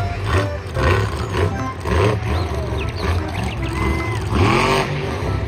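Monster truck engine revving, its pitch rising and falling, over background music.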